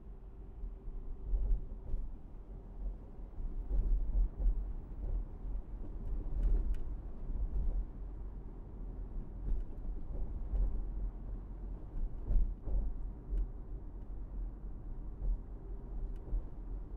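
Car driving on city streets: a low, uneven rumble of road and engine noise, with a few light knocks now and then.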